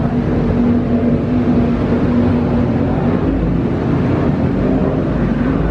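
Offshore racing powerboats' engines droning steadily as they run down the course.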